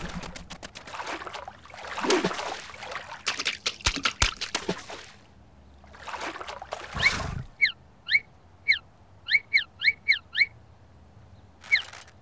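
Cartoon sound effects: a few seconds of noisy scuffling and splashing, then a quick run of about ten short high squeaks, each sliding down in pitch.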